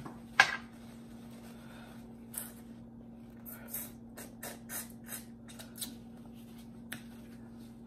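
Close-up mouth sounds of eating turkey neck bones by hand: a sharp smack about half a second in, then a string of short lip smacks and chewing clicks as meat is pulled off the bone and chewed.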